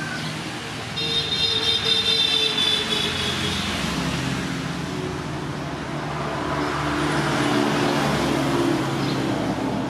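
A motor vehicle's engine running. It gets louder about a second in, eases off, then swells again near the end, like traffic going by.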